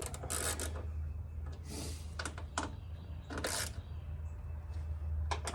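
Sped-up time-lapse audio of headlight mounting screws being tightened by hand: quick, irregular clicks and rattles of tool and screws over a steady low hum.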